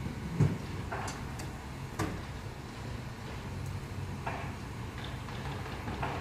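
A handful of scattered knocks and clunks as a large cardboard box on a hand truck is handled and pushed into the open back of a delivery van, the loudest about half a second in, over a steady low hum.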